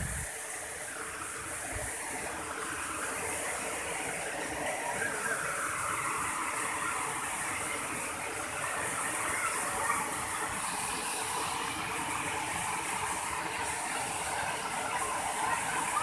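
Waterfall cascading down over rocks: a steady rushing of falling water.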